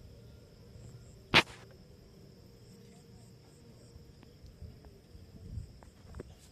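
A steady high-pitched insect drone, broken about a second and a half in by one short, sharp crack, the loudest sound here.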